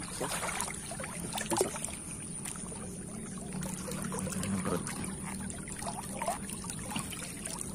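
Shallow stream water sloshing and splashing as hands and legs move through it, with scattered small splashes and knocks.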